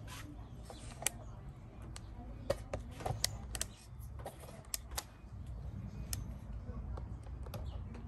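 Scattered sharp clicks and ticks at irregular intervals over a low steady rumble.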